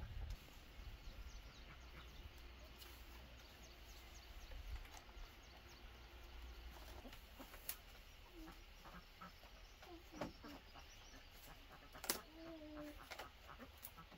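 Thin bamboo strips ticking and rustling as a bamboo cage is woven by hand, with a sharp click about eight seconds in and a louder one near twelve seconds. Poultry cluck faintly a few times in the second half.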